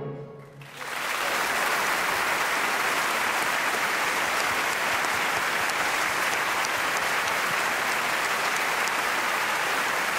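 A baroque orchestra's last chord dies away at the very start, then a large concert-hall audience breaks into steady applause about a second in.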